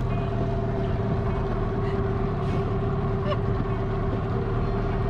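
A boat engine running steadily while under way, a constant hum over a low rushing drone.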